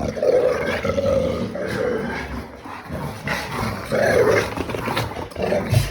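Labrador retriever grumbling, with growl-like moans in several drawn-out bouts: a dog complaining and sulking.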